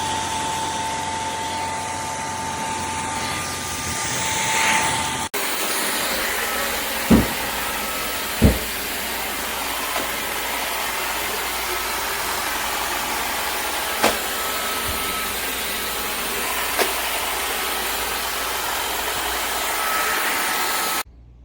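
Shark Clean & Empty cordless stick vacuum running with a steady motor noise, with a few short knocks along the way. It stops abruptly near the end.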